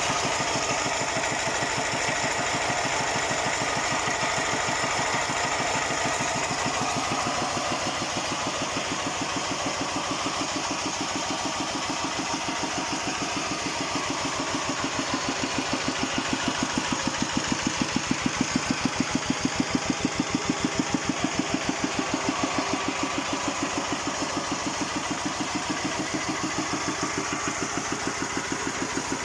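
Talay Thong 11-horsepower single-cylinder diesel engine of a walk-behind farm tractor idling steadily with an even, regular firing beat. The idle is very smooth, and it gets slightly louder for a few seconds past the middle.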